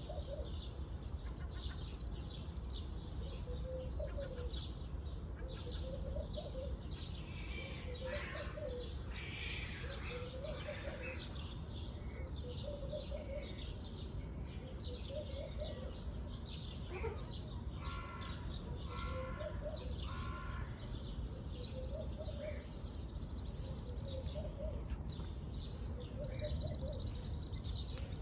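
A parrot and other birds calling: high chirps throughout, a low call repeating about every two seconds, and a louder run of calls a little past halfway, over a steady low hum.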